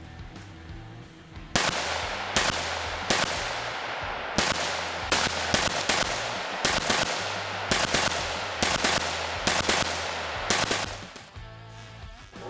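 AR-15 pistol fired semi-automatically in a steady string of about fifteen shots, one to two a second, each followed by a short echo, over background music. The shooting stops near the end, leaving only the music.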